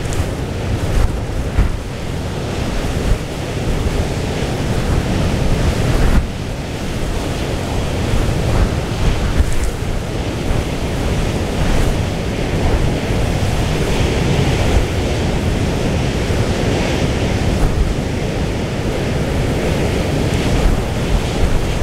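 Storm wind blowing hard across the microphone: a loud rushing noise, heaviest in the low end, that swells and eases with the gusts, over the wash of a rough sea.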